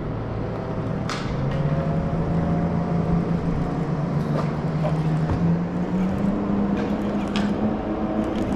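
A steady motor hum that rises slowly in pitch, with a few sharp clicks over it.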